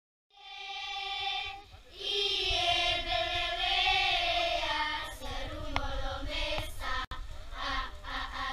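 A group of children singing together, holding long notes. The singing fades in just after the start and breaks off briefly near two seconds before carrying on.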